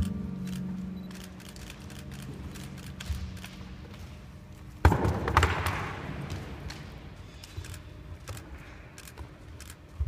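Winter guard show music fades out, leaving scattered thuds and taps from performers' feet and handled equipment on the floor tarp. A sudden loud crash comes about five seconds in.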